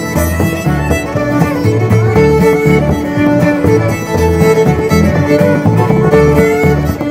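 Background music: fiddle-led string music over plucked guitar with a steady beat, in a bluegrass or country style.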